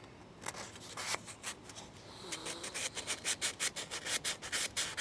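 Hand sanding with fine 220-grit sandpaper to open up the blade slot of a bandsaw zero-clearance insert a little on each side. There are a few separate strokes at first, then quick back-and-forth rubbing at about five strokes a second from a little past halfway.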